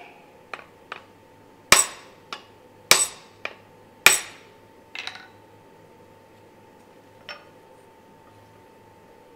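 Hand-forged steel hammer head knocked down against a steel swage block to drive and seat its wooden handle: a run of sharp metallic clanks with ringing, the three loudest about a second apart, with lighter knocks between and one small clink near the end.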